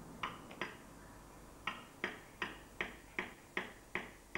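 Sharp clicks, two near the start, then from about a second and a half in a run of evenly spaced ones, about two and a half a second.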